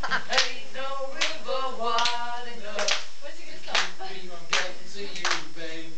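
Two boys singing, with hand claps keeping the beat about every 0.8 seconds.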